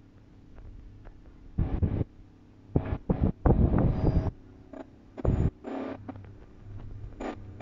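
Wind buffeting the microphone in several loud, irregular gusts. Between them there is a faint low hum from the approaching diesel passenger train.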